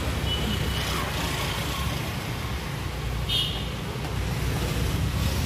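Steady rumble and hiss of street traffic, with a brief high chirp about three seconds in.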